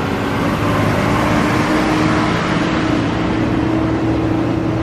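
A motor vehicle's engine running steadily, a low steady hum over a continuous rushing noise.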